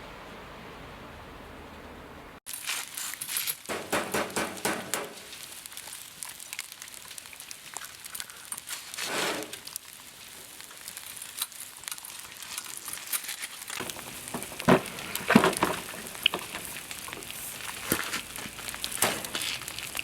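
Food sizzling and crackling while cooking over a campfire, with scattered sharp clicks and rustling. It follows a steadier hiss that cuts off abruptly about two seconds in.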